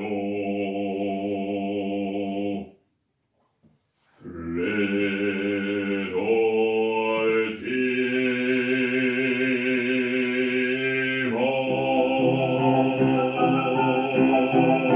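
Male operatic voice singing long held notes with vibrato over piano accompaniment. The sound cuts out completely for about a second and a half a few seconds in, then the singing comes back.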